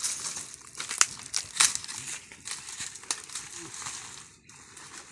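Dry crinkling and crackling, an irregular run of sharp crackles from something dry being crushed or handled close by, easing off near the end.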